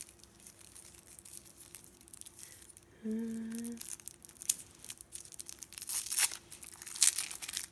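Tissue paper crinkling and rustling as a small wrapped item is unwrapped by hand, with a dense run of crackles that grows busier in the second half. A short hummed sound from a voice comes about three seconds in.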